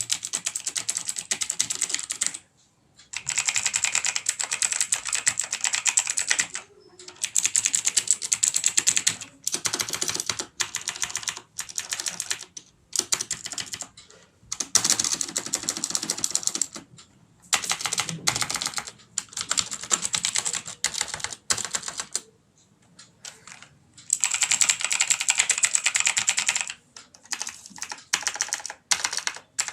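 Rapid key presses on a TVS Gold mechanical keyboard with clicky blue switches, a dense clatter of sharp clicks. It comes in bursts of a few seconds with short pauses between them, the longest pause a little past twenty seconds in.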